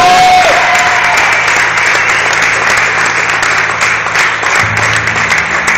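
Audience applauding, with a whistle in the first second.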